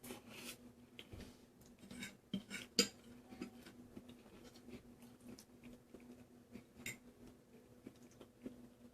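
Fork clinking and scraping on a plate while eating pasta, with soft chewing between the clicks; the sharpest clink comes a little under three seconds in.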